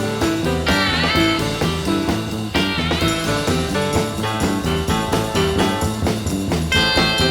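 Background music: an instrumental track with a repeating bass line and a steady rhythm.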